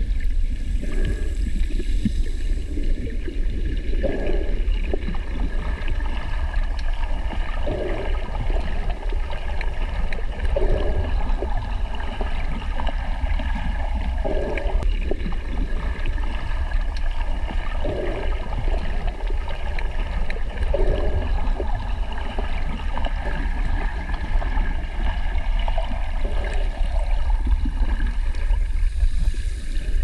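Underwater ambience: a steady low rumble with water gurgling, and soft swells every three to four seconds.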